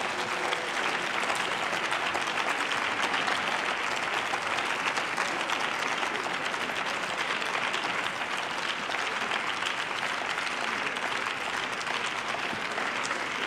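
Members of parliament applauding: steady, dense clapping.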